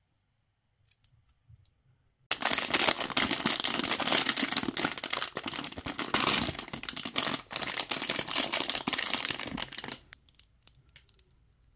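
A thin plastic blind-box bag being torn open and crinkled by fingers: dense crackling full of small clicks that starts suddenly about two seconds in and stops abruptly near the end.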